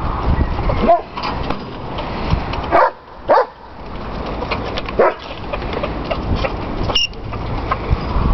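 A few short animal calls, a second or two apart, over a steady low rumble.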